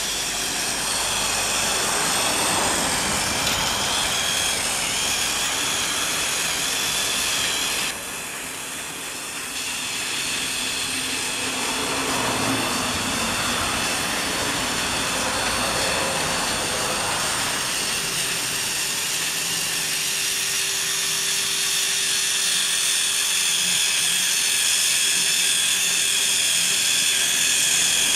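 Motorised Tomy TrackMaster toy locomotive running along plastic track hauling coaches: a steady whirring motor and gear whine, with a brief drop in level about eight seconds in.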